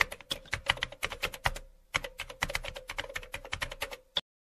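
Computer keyboard typing sound effect: a rapid run of keystroke clicks, about eight to ten a second, with a short pause about a second and a half in, then a final lone click just before it stops.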